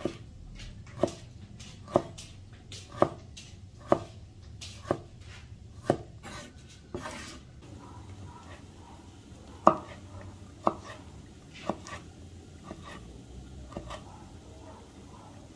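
Knife chopping on a cutting board in slow, even strokes, about one a second. After six strokes there is a pause with a short scrape, then the chopping resumes more softly.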